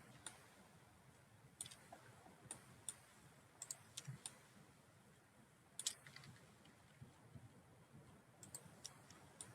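Faint, irregular clicks of a computer mouse, some single and some in quick pairs, with a cluster near the middle and a few more near the end.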